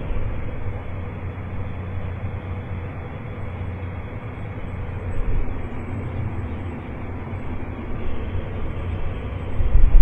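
Steady drone and low rumble of a tractor engine heard from inside the cab while driving at field speed; the rumble grows louder near the end.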